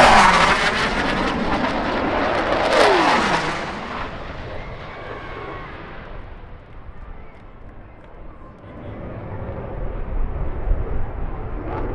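Blue Angels F/A-18 Hornet jets making low passes. The loudest roar is at the start and falls in pitch as the jet goes by, and a second jet passes about three seconds in, again falling in pitch. The roar then fades, and a lower rumble builds again near the end.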